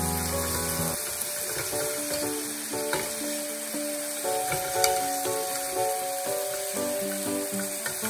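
Beef short ribs sizzling steadily on the ridged plate of an Iwatani smokeless tabletop grill. A few light clicks come from the tongs and kitchen scissors working the meat, the sharpest a little before five seconds in.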